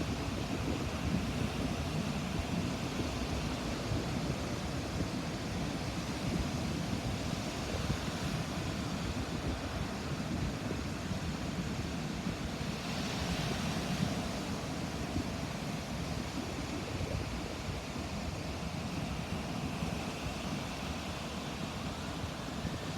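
Ocean surf rolling and washing onto a beach: a steady low rumble of breaking waves, with one brighter, hissing wash about halfway through.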